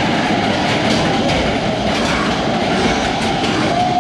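Matterhorn Bobsleds coaster car running along its tubular steel track, a loud, steady rumble and clatter of the wheels. A thin wheel squeal starts near the end.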